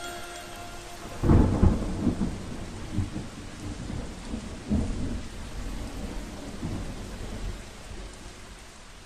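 A thunderclap about a second in, followed by low rolling rumbles that swell several times and die away, over a steady hiss of rain.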